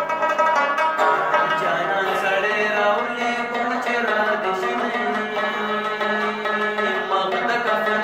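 Afghan rubab being plucked, playing a continuous melody in a Pashto folk style.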